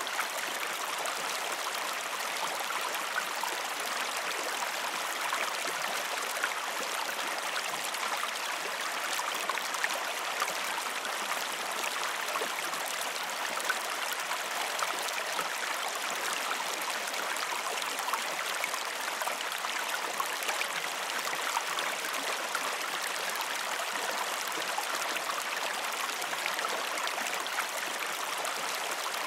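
Creek water flowing and babbling steadily, a continuous rush of water with small splashes and gurgles throughout.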